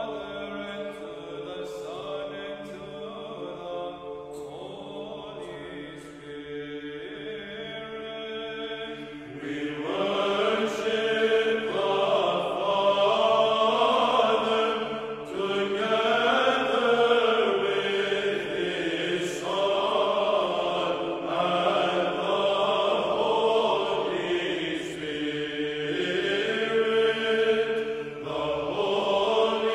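Background music of slow choral chant, with long held notes in several voices, swelling louder about ten seconds in.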